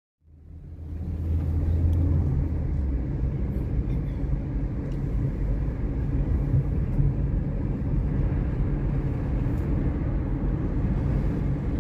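Road and engine noise heard inside a moving car: a steady low rumble that fades in over the first second or so.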